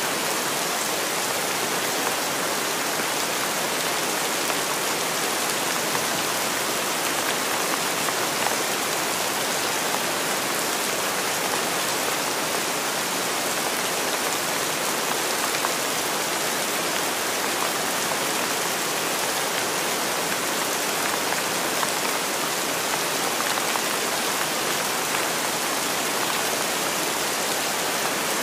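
Steady rain falling: an even, unbroken hiss with no single drops or rumbles standing out.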